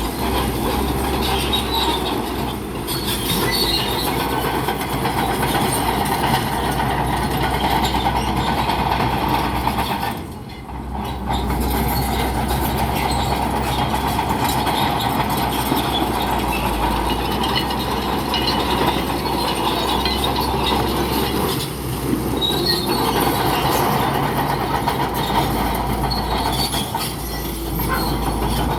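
Crawler bulldozer working: a steady low diesel drone under loud, continuous clanking from its steel tracks. The sound dips briefly about ten seconds in and again near twenty-two seconds.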